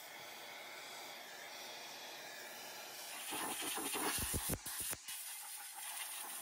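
Vacuum hose nozzle sucking air inside a lathe's electrical box: a steady hiss that grows louder about three seconds in, with a few quick knocks or rattles between four and five seconds as the nozzle picks up debris.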